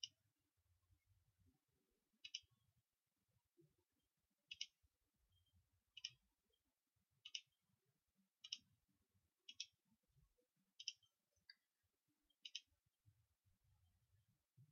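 Computer mouse clicks, about ten of them at uneven intervals of one to two seconds. Most are a quick double snap of button press and release, each one placing a point of a line in a CAD sketch.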